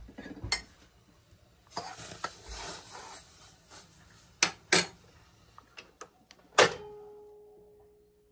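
Kitchen clatter of dishes and utensils: scattered sharp clinks and a short noisy stretch of handling, then one louder strike about two thirds through that leaves a clear ringing note fading away over about two seconds.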